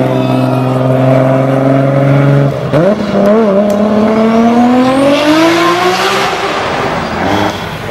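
Nissan Skyline R34's engine held at steady high revs as the car passes, then dipping briefly and climbing steadily in pitch as it accelerates away, fading near the end.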